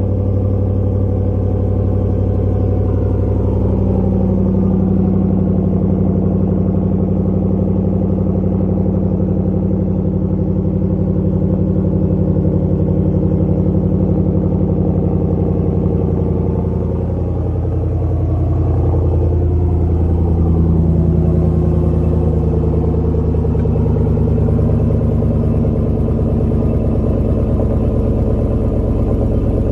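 A 2020 Ram 1500's 5.7-litre Hemi V8 idling just after a cold start, heard at the exhaust with the mid muffler and resonator deleted, so the exhaust note is loud and rumbling. About two-thirds of the way through, the engine note dips briefly and then swells.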